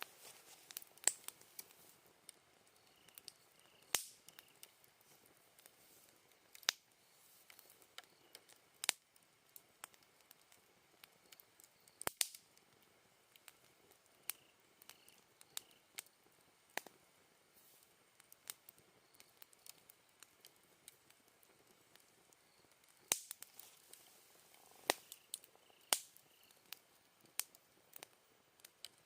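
Wood campfire crackling, with sharp snaps and pops at irregular intervals, a few of them much louder. Autumn insects chirp faintly and steadily behind the fire.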